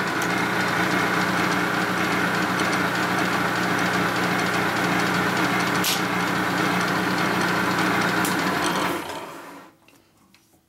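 Milling machine running steadily with its cutter sweeping a Harley-Davidson Panhead cylinder head's combustion chamber, then switched off about nine seconds in and winding down. The pass takes no new metal: it didn't recut.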